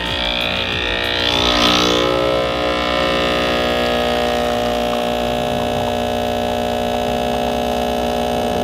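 Breville Barista Express's vibratory pump humming steadily while pulling a double shot of espresso. It grows louder with a brief hiss about a second and a half in.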